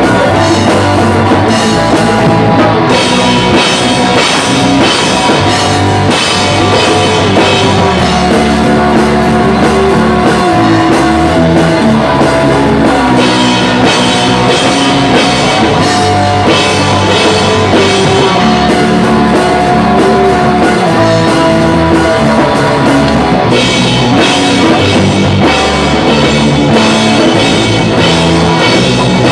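Pop-punk band playing loud, driving rock on drum kit and electric guitars, with chord changes every second or two over constant drumming.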